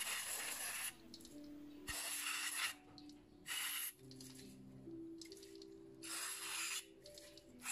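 Aerosol carburetor cleaner sprayed through a thin extension straw into the idle air control valve port of a throttle body, in four short hissing bursts.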